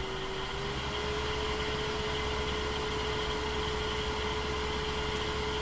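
Laguna 2436 wood lathe with a three-phase motor running steadily at higher speed, spinning a heavy epoxy-filled oak burl blank. It gives a steady whine over a low hum, rising slightly in pitch about half a second in and then holding. At this speed it runs smooth, without the wobble it shows at low RPM.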